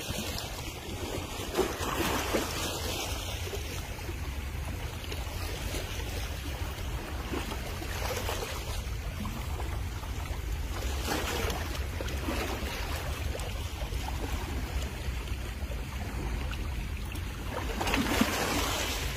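Sea water washing against a rocky shore, swelling a few times, with a steady low rumble of wind on the microphone.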